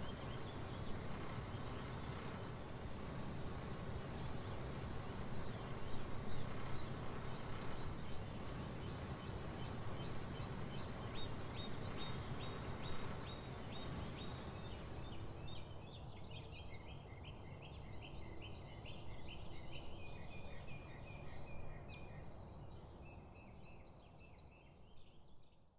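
Outdoor background noise with a steady low rumble. About halfway through, a bird starts calling in quick runs of short repeated chirps, and the sound fades out at the very end.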